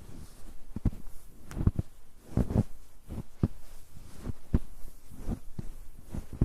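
Footsteps on a snow-covered road: a steady walking pace of about two steps a second, each step a short, sharp sound.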